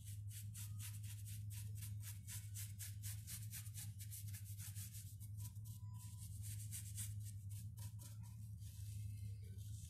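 Paintbrush scrubbing PVA paint onto a rough, cracked wooden board in quick back-and-forth strokes, about five a second, turning slower and irregular after about six seconds, over a steady low hum.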